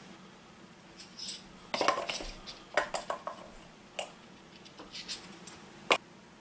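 Metal measuring spoons clattering and clinking against containers and a mixing bowl as dry brine ingredients are measured out, in a flurry of clicks about two seconds in, a few single ticks after, and one sharp click near the end.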